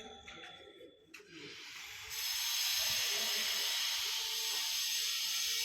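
A steady hiss starts abruptly about two seconds in, after a faint tune fades out.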